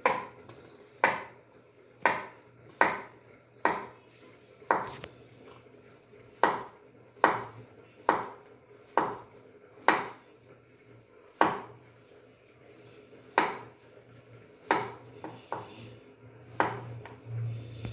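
Kitchen knife slicing a peeled plantain into rounds, each cut ending in a knock of the blade on a wooden cutting board, about one cut a second at an uneven pace.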